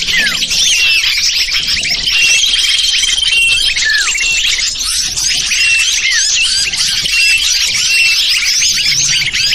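Lure-call recording of many small songbirds chirping and calling over one another in a dense, unbroken chorus. A short call repeats throughout, and a high trill runs from about two seconds in to almost four seconds.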